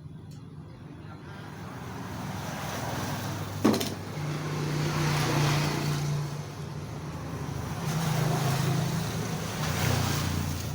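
A motor vehicle's engine running, swelling and fading several times, with one sharp knock a little under four seconds in.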